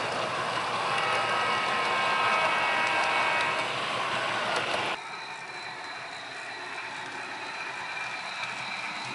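Model passenger train running on its track, with a loud, even running noise and several steady tones. About five seconds in the sound drops abruptly to a quieter running noise with a thin, steady high tone.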